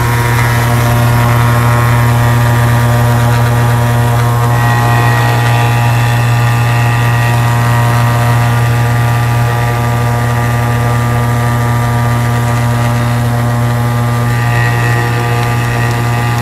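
Industrial sugar grinding machine running steadily under load, milling sugar into fine powder: a loud, even drone with a stack of steady tones.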